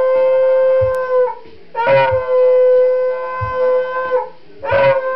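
A dog howling along to music in long held notes of steady pitch. One note ends about a second in, the next is held for about two and a half seconds, and a third begins near the end, each opening with a short upward slide.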